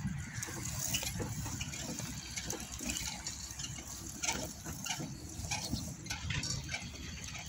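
Footsteps at walking pace on a paved path, with wind rumbling on the microphone.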